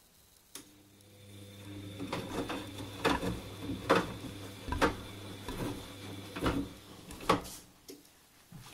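Bosch Avantixx 8 front-loading washing machine turning its drum during a wash: a steady motor hum with a faint high whine that builds up over the first two seconds, and a thump about every second as the wet laundry tumbles. The motor stops near the end.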